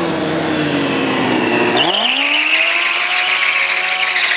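Sport motorcycle engine revved sharply up about two seconds in and held at high revs while the rear tyre spins and squeals against the pavement in a burnout.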